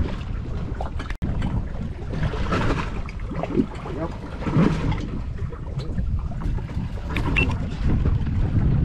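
Wind rumbling on the microphone aboard a fishing boat at sea, with a few brief, muffled voices in the background.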